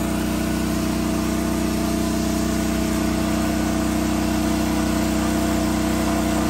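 Small petrol engine, most likely a portable generator, running steadily at a constant speed with an even hum.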